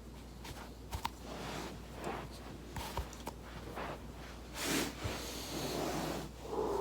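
Body rolling over a foam roller: rustling and friction noise from the body and clothing on the roller, with a few small, sharp clicks about a second in and again around three seconds in, and a louder hissing swell near the end.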